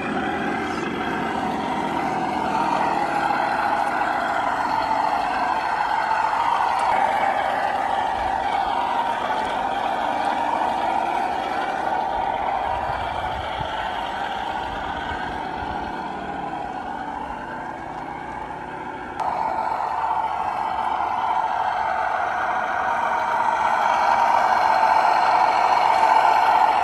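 Electric motor and gearbox of an RC scale crawler, a steady whine that wavers in pitch as the throttle is worked. It jumps suddenly louder about two-thirds of the way in and grows louder again near the end as the truck comes closer.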